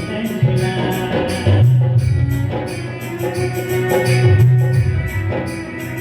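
Instrumental interlude of a Hindi devotional bhajan: a steady rhythmic beat of jingling percussion and low drum strokes under a sustained melody line.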